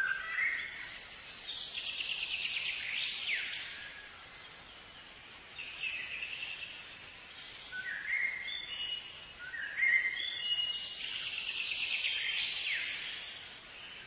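Songbirds singing: repeated song phrases of short notes stepping downward in pitch and fast trills with quick downward sweeps, with a lull about four seconds in.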